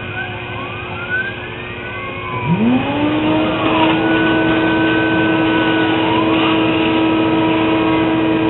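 Sherline CNC mill's motors whining as the machine works: first several shifting, gliding pitches, then about two and a half seconds in a tone sweeps up quickly and holds steady, getting louder.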